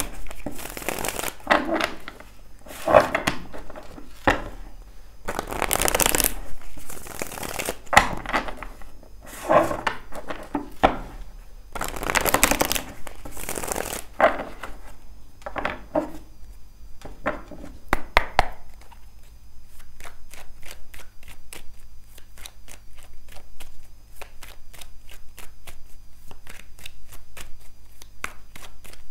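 Tarot deck shuffled by hand: a series of riffle shuffles, each a short rush of flicking cards. About two-thirds through it changes to a quieter hand-to-hand shuffle of quick, light clicks.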